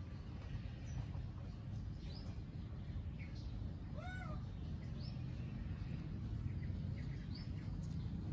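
A domestic cat gives one short meow, rising then falling in pitch, about four seconds in. Faint high chirps come and go over a steady low background rumble.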